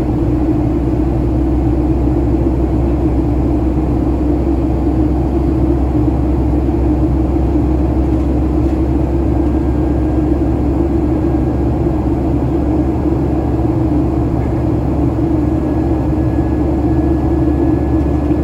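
Cabin noise of a Boeing 737-900ER climbing after takeoff: the steady drone of its CFM56-7B turbofans at climb thrust mixed with airflow rush, heard inside the cabin, with a strong low hum.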